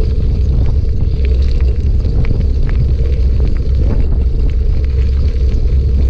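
Bicycle rolling over a gravel track, heard through a camera mounted on the bike: a steady heavy rumble of wind and vibration, with small gravel ticks and rattles scattered throughout.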